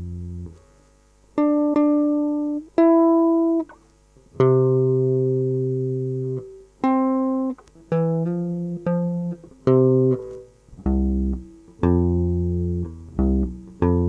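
A lone guitar picking a slow line of single notes, about a dozen, each ringing out and fading, with short gaps between them. Several very low notes come in near the end.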